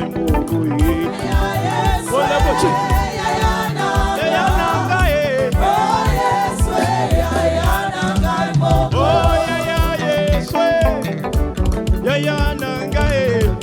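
Live gospel band playing upbeat African-style dance music, with singing over a steady bass and drum beat.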